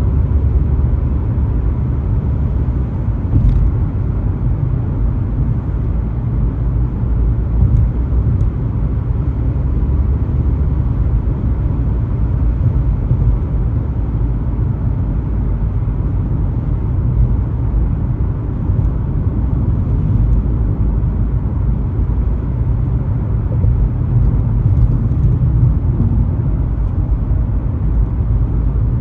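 Steady low rumble of a car driving along a highway: tyre and road noise with the engine underneath, holding level throughout, with a few faint small ticks.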